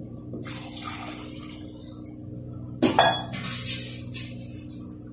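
Water poured from a cup into a pressure cooker of chicken masala and rice: a soft trickle at first, then a loud splash about three seconds in that dies away over a second or so.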